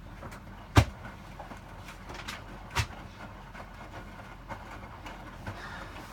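Hotpoint WMFUG 942 front-loading washing machine running with a steady low hum. Two sharp knocks from the drum, about a second in and near three seconds, with lighter clicks between.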